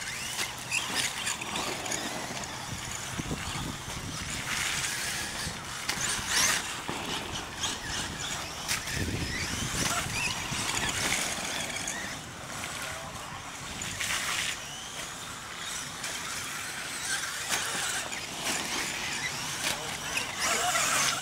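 Radio-controlled mega truck driving over a dirt track, its motor and drivetrain whining in repeated high-pitched surges.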